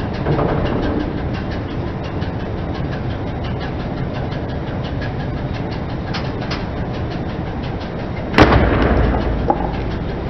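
Car engine running steadily as the tyre rolls slowly over a gritty concrete floor, with a steady crackle of small ticks. About eight seconds in comes one loud sharp crack as a plastic photo frame snaps under the tyre, followed by a smaller click about a second later.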